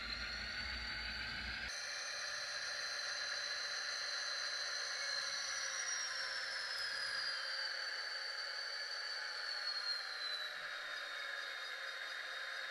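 Small electric motor of a model diesel locomotive whining as it creeps along the track over a faint hiss, its pitch sinking slowly midway as the engine slows.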